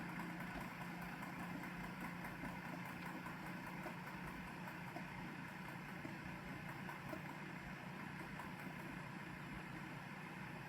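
Cuckoo Power Clone all-in-one station washing the robot vacuum's mop pads: a faint, steady motor hum with an even hiss of running water and spinning pads.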